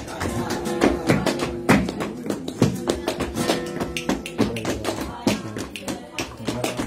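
Flamenco palmas: several people clapping hands sharply in a syncopated bulerías rhythm, several claps a second, with guitar playing underneath.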